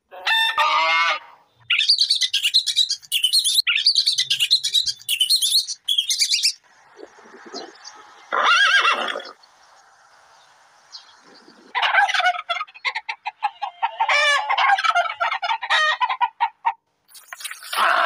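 Chickens clucking and squawking in short bursts of calls, followed after a cut by a horse's long quavering whinny.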